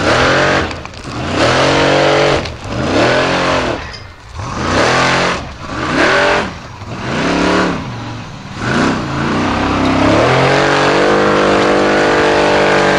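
Formula Offroad buggy engine revving hard in repeated bursts on a steep hill climb, its pitch rising and falling several times. From about ten seconds in it is held steady at high revs.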